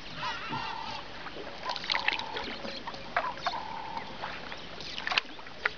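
Small boat being rowed across calm water: a short squeak recurs about every one and a half seconds, among sharp knocks and splashes.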